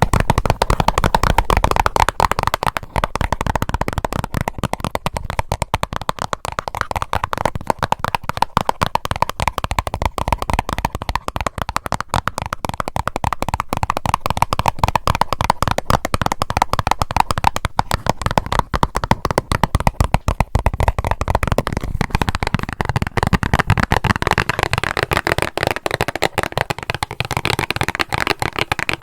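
Rapid, continuous tapping on a band-aid box, many quick taps a second. The tapping turns brighter and crisper about three-quarters of the way through.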